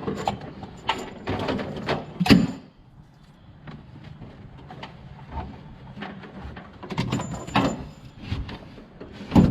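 CB antenna cable being handled and fed along inside a vehicle: a scatter of clicks, knocks and rubbing, with a loud knock about two seconds in and another near the end.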